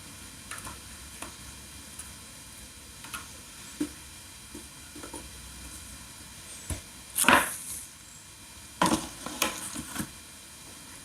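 Handling noises from hands-on repair work: scattered light clicks and taps, then two louder short scraping rustles, about seven and about nine seconds in.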